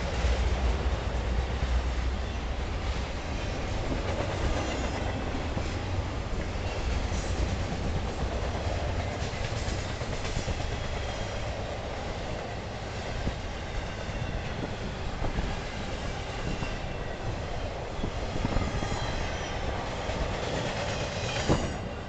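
Intermodal freight train of trailers on flatcars rolling past, steel wheels rumbling and clacking over the rail joints with faint high squeals from the wheels. One sharp knock near the end.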